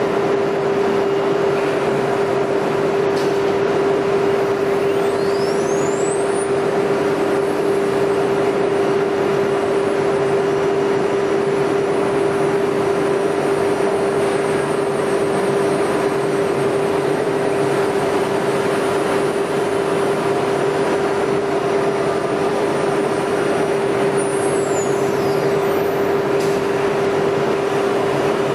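ATC CNC router spindle running with a steady high whine as its bit cuts through MDF, over a constant noisy hiss.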